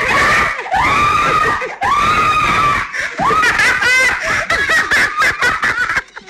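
A woman screaming in fright: three long, high shrieks in the first three seconds, then shorter broken cries mixed with laughter.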